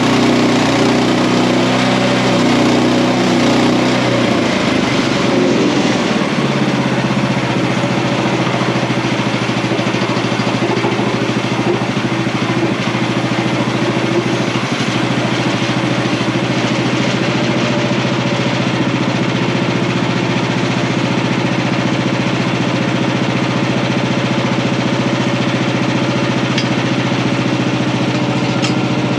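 OS31 portable band sawmill's engine running steadily. About five seconds in its speed drops to a lower pitch and it holds there for the rest of the time.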